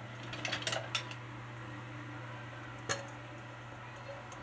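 A utensil scraping and clinking against a stainless steel mixing bowl as the last of the egg and sausage mixture is scraped out: a quick run of clicks and scrapes in the first second and one sharp clink near three seconds. A steady low hum runs underneath.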